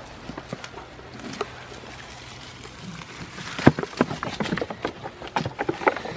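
A quick run of sharp knocks and clatters, starting a little past halfway, with the loudest single knock near its start, after a few scattered lighter clicks.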